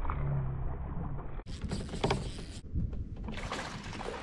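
Fishing kayak on the water: water sloshing against the hull with a few small knocks. The sound changes abruptly about a second and a half in.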